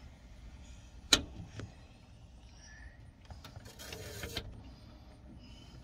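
The manual engine primer of a Cessna 150 being worked in the cockpit before start: a sharp click about a second in, then a short hissing stroke near the middle as fuel is pumped into the engine.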